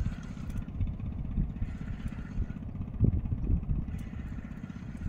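Small wooden fishing boat's engine running steadily while the boat is under way, a dense low pulsing, with one louder thump about three seconds in.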